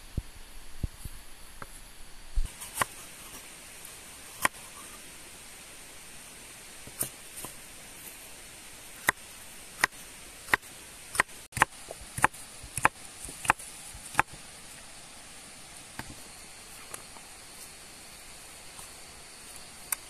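Chef's knife slicing bell peppers and striking a wooden cutting board: sharp, irregular chops, with a quicker run of about nine cuts, roughly one every two-thirds of a second, in the middle.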